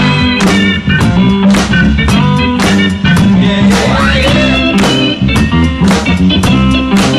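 Background music: an upbeat instrumental track with electric guitar over a steady drum-kit beat, the guitar bending in pitch about four seconds in.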